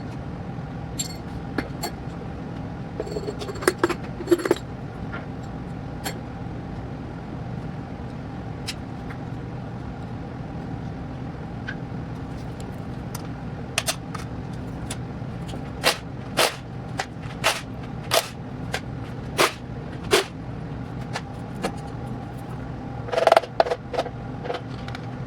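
Sharp metallic clicks and clinks of hand tools and engine parts handled during an engine teardown, a small cluster a few seconds in, a run of single clicks about twice a second later on, and a burst near the end, over a steady low hum.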